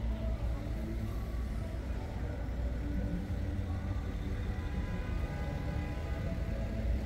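City street traffic: motor vehicle engines running with a steady low rumble.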